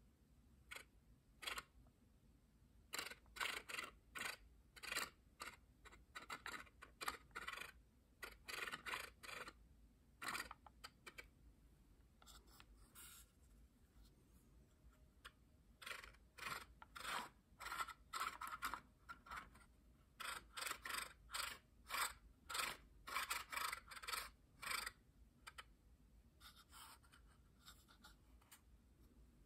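Wooden parts of a small hand-worked cat-and-mouse automaton scraping and clicking against each other as it is moved back and forth. The strokes are short and come in several runs, with pauses between them.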